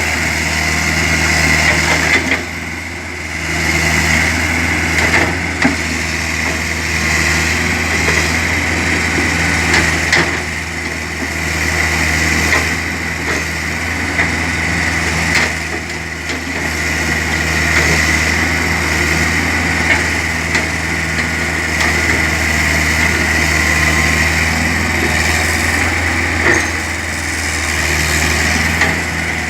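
Excavator running steadily: a low engine hum with a steady high whine over it, and a few sharp knocks now and then.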